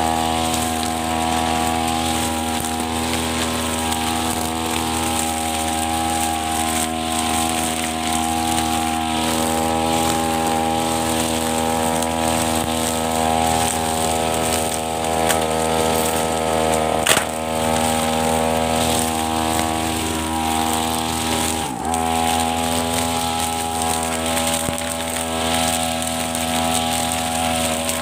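Backpack brush cutter's small petrol engine running steadily at high speed while its line head cuts long grass and weeds, with one sharp knock partway through.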